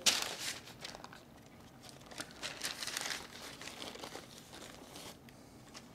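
Thin white backing sheet crinkling as it is peeled and lifted off pre-rolled pizza dough by hand, in irregular rustles that are loudest at the start and again around the middle, softer near the end.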